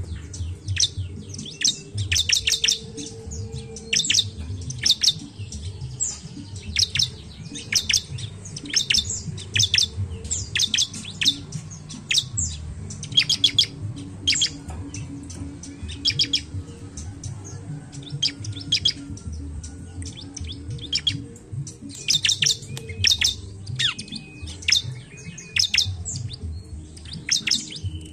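Bar-winged prinia (ciblek) calling: quick clusters of sharp, high chirps, repeated about once a second with short pauses between.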